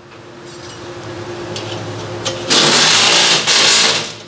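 Power wrench run in two bursts on the front strut-to-knuckle bolt, the first about a second long and the second shorter, over a steady hum that swells over the first couple of seconds.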